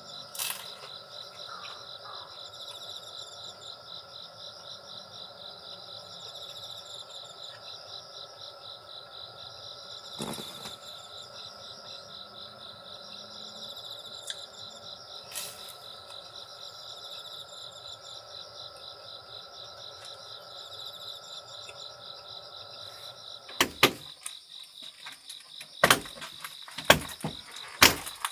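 Insects chirping in a steady, fast-pulsing chorus. In the last few seconds a series of sharp clicks and knocks sounds over it.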